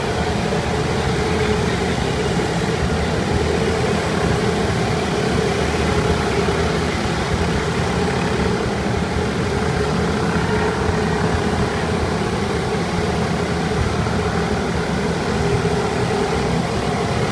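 Several bumper boats' small motors running together in a steady drone, with propeller-churned water.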